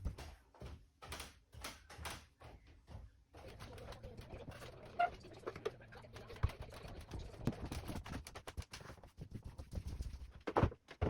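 Irregular knocks and footfalls in a small room, with a pigeon cooing briefly about five seconds in.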